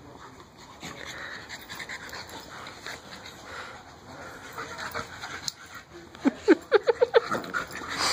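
Two dogs play-wrestling, panting and scuffling, then about six seconds in a rapid run of about eight loud, short yips from one of them.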